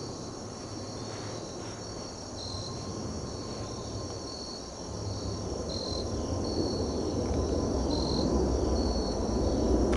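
Insects chirring steadily in the woods: a high trill that pulses on and off, over a low rumble that grows louder over the second half. It ends with a single sharp crack, which is the air rifle's pellet shot.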